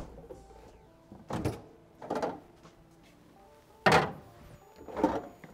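Refrigerator door and a lidded glass bowl being handled as the bowl goes onto a fridge shelf: a handful of short bumps and scrapes, the loudest about four seconds in.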